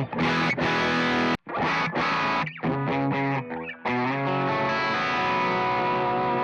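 Electric guitar played through distortion and effects pedals: choppy strummed chords that cut off sharply about a second and a half in, a quick run of picked notes, then a chord left ringing from about four seconds in.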